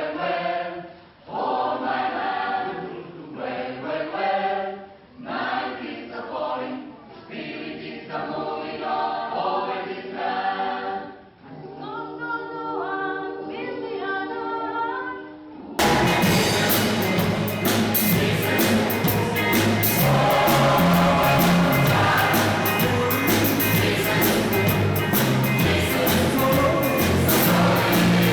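Gospel choir singing in phrases, with no accompaniment heard under the voices. About halfway through it cuts abruptly to a louder, fuller recording of the choir over instrumental backing with a bass line.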